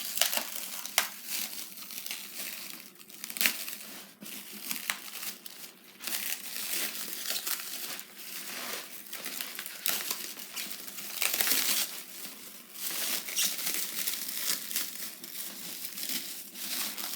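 Packaging wrap crinkling, crumpling and tearing by hand as a costume mask head is unwrapped, in irregular crackly handfuls throughout.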